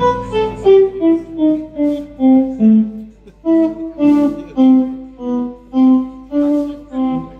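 Electric guitar solo, a Stratocaster-style guitar playing single sustained notes with the band quietly behind it. The notes fall in pitch over the first second, then come one at a time, about two a second, each swelling and fading.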